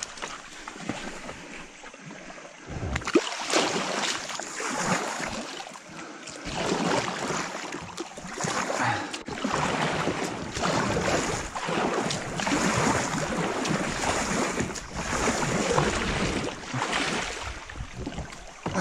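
Water splashing and rushing around a kayak as it is paddled through a quick, shallow river current, getting louder about three seconds in and swelling irregularly with the strokes.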